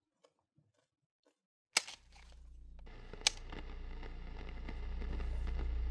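A sharp switch click, then radio static with a low hum comes on and swells steadily louder, with another sharp click about a second and a half later: a ham radio set being switched on and turned up.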